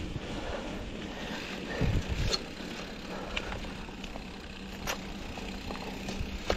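Mountain bike rolling along a gravel dirt road: steady tyre noise with a few scattered sharp clicks and knocks from stones and the bike.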